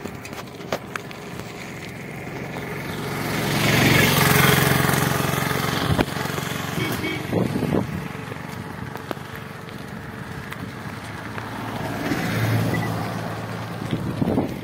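Motor vehicles passing on the road, their engines swelling and fading, the louder one about four seconds in and another about twelve seconds in. Under them runs a steady rush of road and wind noise from riding a bicycle, with scattered small clicks.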